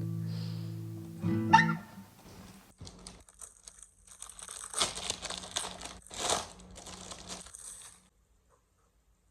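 Plucked guitar chord ringing out and fading in the first two seconds, followed by several seconds of soft rustling and crinkling, then near silence.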